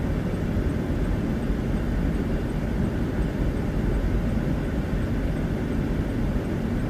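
Steady low rumble of a car driving along a highway, tyre and engine noise heard from inside the cabin.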